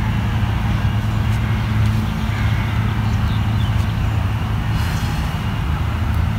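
Steady low mechanical drone of an engine running.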